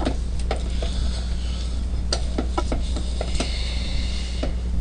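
Steady low electrical hum with about ten small, irregular clicks and light clinks over a few seconds.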